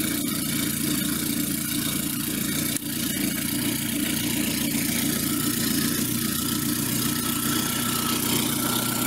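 Car engine idling steadily, running again after being jump-started from a portable booster pack on a fully discharged battery.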